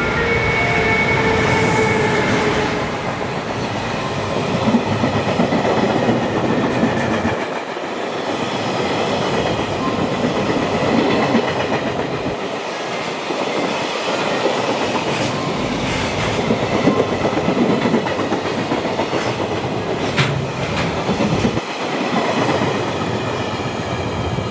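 A long freight train of container wagons hauled by an EF510 electric locomotive passes through a station without stopping: a continuous loud rumble and clatter of wagon wheels on the rails, with occasional sharp clicks. A few steady tones sound only in the first couple of seconds as the locomotive goes by.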